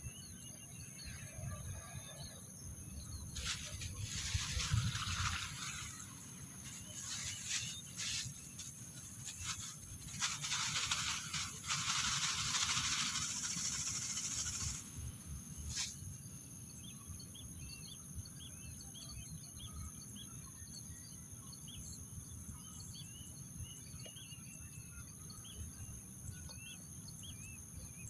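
Rice-field ambience: many small birds chirping over a steady high-pitched insect drone, with loud bursts of hissing noise between about 3 and 15 seconds in.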